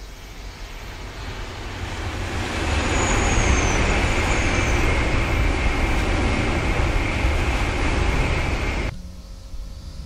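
Coupled E6 and E5 Shinkansen high-speed train passing along an elevated viaduct. A rushing rail and wind noise builds over the first three seconds, holds steady and loud, then cuts off abruptly about nine seconds in. A quieter rushing begins to rise again near the end.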